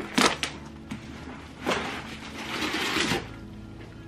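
A cardboard shipping box being opened by hand: two sharp snaps of the flaps near the start, then scraping and rustling as a bubble-wrapped shoebox is slid out, the longest rustle about two and a half seconds in.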